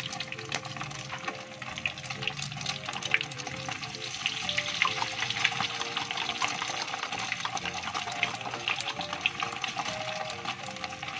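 Steady crackle of oil frying in a wok, with scissors snipping fried tofu into pieces. Background music with a simple stepping melody plays under it.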